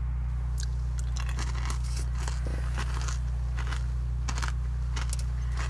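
A person chewing and crunching hard toffee, with irregular crunches throughout, over a steady low hum.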